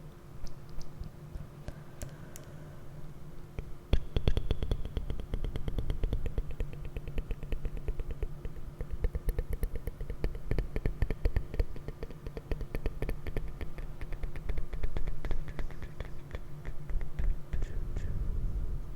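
Rapid, light tapping and rubbing on an object close to the microphone, starting about four seconds in and running as a dense stream of small clicks. A low steady hum sits underneath.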